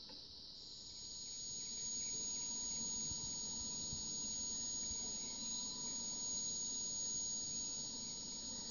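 A flower's electrical signal picked up by electrodes on its stem and turned into sound through a loudspeaker, heard through a TV speaker: a steady high whine over a hiss that swells over the first couple of seconds and then holds.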